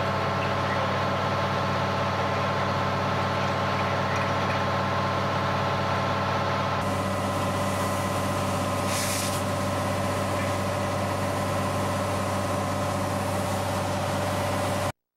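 Fire engine's diesel running steadily, a constant multi-tone drone as it supplies the hose lines. A brief hiss comes about nine seconds in, and the sound cuts off abruptly near the end.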